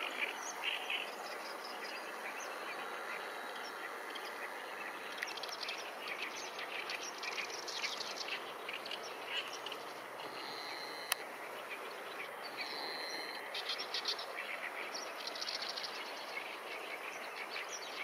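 Small birds chirping and twittering over a steady background hiss, with a short steady high trill twice in the second half and a single sharp click near the middle.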